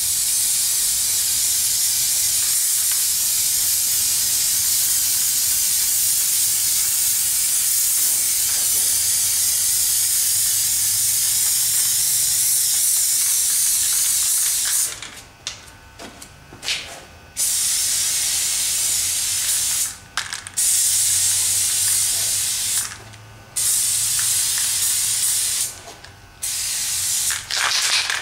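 Spray paint hissing from a nozzle in one long continuous pass of about fifteen seconds, then in four shorter bursts of two to three seconds with brief stops between.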